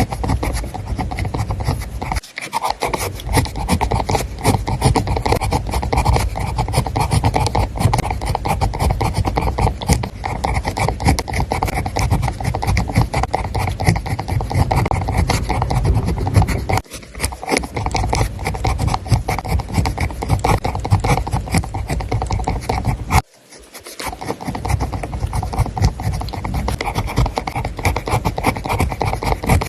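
Writing on paper: continuous rapid scratching strokes of a pen across the page. It breaks off briefly three times.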